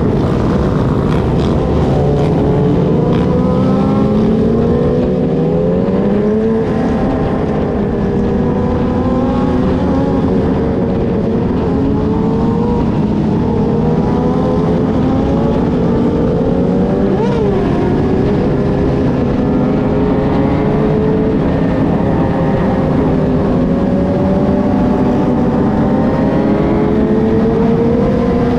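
Many sport-bike engines running together in a pack, several at once rising and falling in pitch as they rev and shift, over a constant low rumble.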